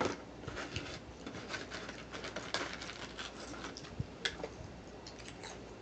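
A person chewing and smacking food, with many irregular small clicks and crackles scattered throughout.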